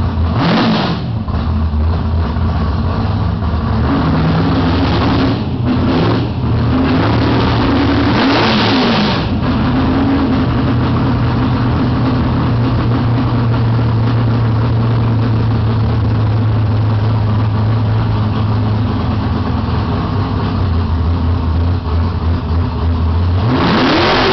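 Ford Mustang drag car's engine idling loudly, blipped up in short revs: once near the start, twice in quick succession about five seconds in, once more a few seconds later, and again at the end.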